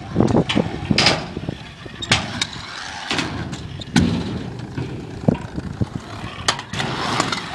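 Kick scooter wheels rolling on skatepark ramps, with several sharp knocks on the ramp surfaces.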